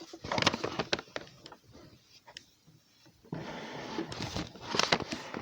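Slime being squeezed and poked by hand, giving a rapid run of small crackles and pops. It goes quiet briefly, then from about three seconds in a denser, steadier crackling squish sets in, with sharp pops near the end.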